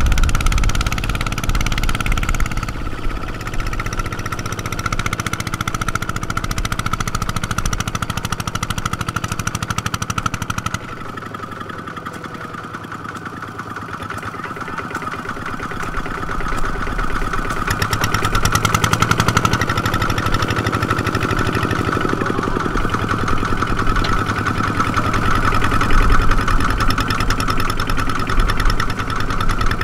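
A farm machine's diesel engine running under a steady high whine. It drops to a quieter, lighter note about eleven seconds in and builds back up a few seconds later.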